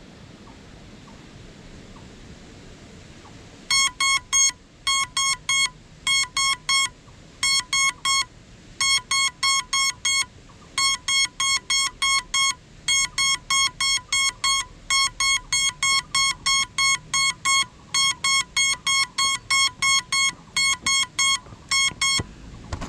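Crashed FPV quadcopter's lost-model beeper sounding, starting a few seconds in. It gives rapid groups of three or four short, high beeps, a group about every second, the alarm a downed drone sounds so that it can be found.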